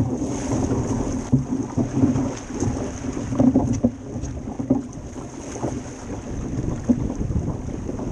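Wind buffeting the microphone of a Club 420 sailing dinghy under way, over water rushing and splashing along the hull, with irregular thumps as the hull meets the chop.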